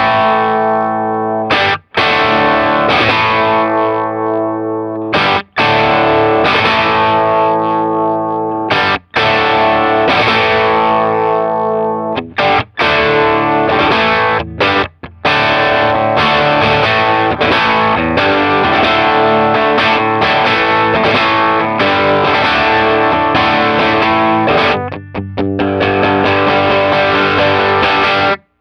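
Distorted electric guitar played through a Sound City SC20 tube combo amp (two 6V6 power tubes, 12-inch Fane speaker): held rock chords cut off sharply every few seconds, with quicker choppy stabs near the end.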